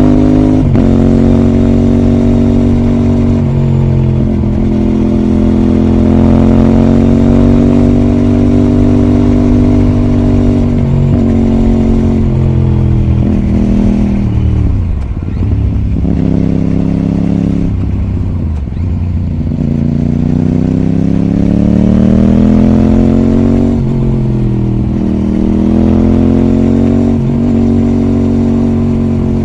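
Aprilia RS660's parallel-twin engine under way on the road, its note stepping down at a few gear changes early on. Around the middle it falls away as the bike slows, then climbs again as it accelerates, with short dips at further shifts near the end.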